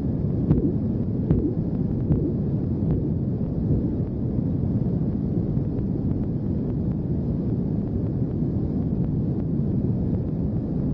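Korotkoff sounds heard through a stethoscope during a manual blood-pressure reading: a tap with each pulse, about every 0.8 s, over a steady low rumble. The taps grow faint about three seconds in, as Korotkoff sounds do when the cuff pressure nears the diastolic pressure.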